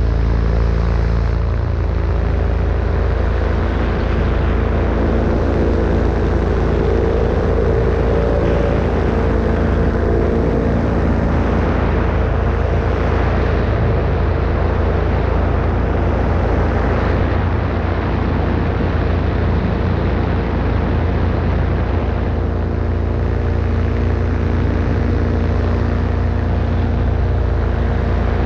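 Paramotor engine and propeller running at a steady, unchanging throttle in flight, with wind rumbling on the microphone underneath.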